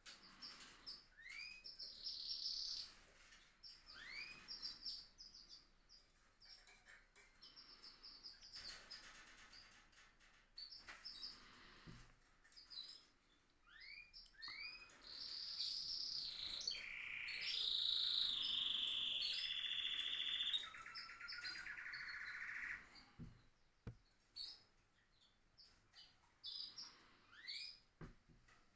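Canaries chirping, with repeated short rising chirps. In the middle a longer, louder song phrase runs for several seconds, with held high notes and fast trills.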